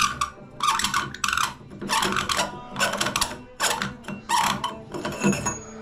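Chrome stem sleeve being twisted off by hand from a three-handle tub/shower valve: a run of short metal-on-metal scrapes, about three every two seconds, as it turns on its threads.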